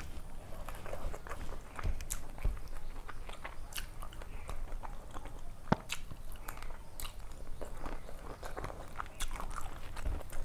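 Close-up eating sounds of a person eating rice and fish curry with her hand: wet chewing and mouth smacks, with the squish of fingers mixing rice on a steel plate, made up of many short, irregular clicks.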